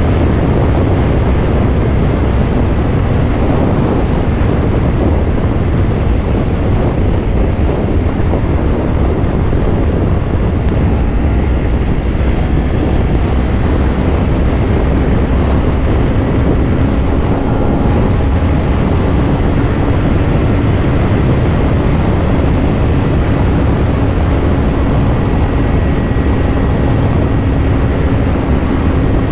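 Heavy wind rush over the microphone with the 2024 Kawasaki Ninja 500's parallel-twin engine running at a steady highway cruise. The engine hum grows a little stronger about halfway through.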